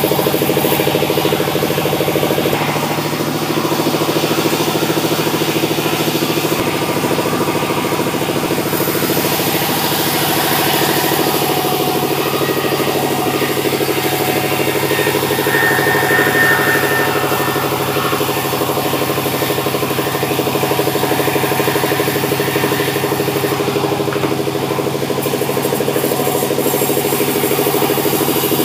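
Sawmill machinery driven by an engine, running steadily and loudly with an even pitch, with small shifts in its sound a few times.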